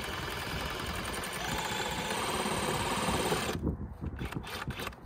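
A thin saw blade rasping steadily through PVC pipe inside a glued fitting, cutting the pipe stub out so the fitting can be removed; it stops about three and a half seconds in, followed by a few light clicks.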